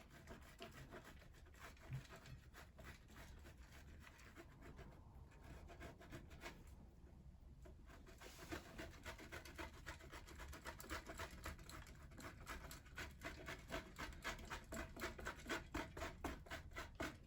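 Fingers crumbling and sprinkling cheese over rolled pancakes on a plate: faint soft ticks and rubbing, which come faster and a little louder in the second half.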